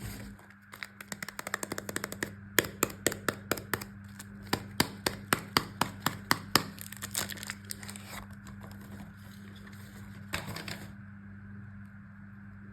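Soap packaging crackling and tearing as it is opened by hand: a quick run of sharp crackles, then a short burst near the end.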